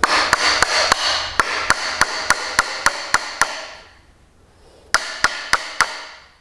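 Wooden-handled claw hammer tapping a nail into wood at an angle (toenailing): quick, even strikes about three a second, each with a metallic ring. The strikes stop for about a second midway, then start again.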